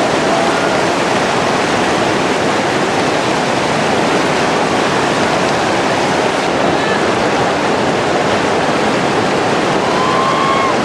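Rushing river rapids: a loud, steady wash of white water, with a faint short call near the end.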